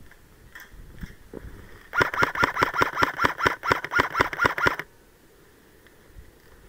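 Airsoft electric gun firing one full-auto burst of just under three seconds, about six or seven shots a second, starting about two seconds in and stopping abruptly.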